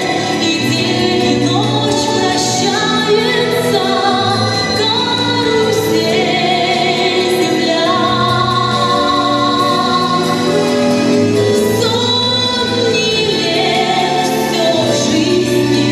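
Music with a group of voices singing held, melodic lines over an instrumental accompaniment.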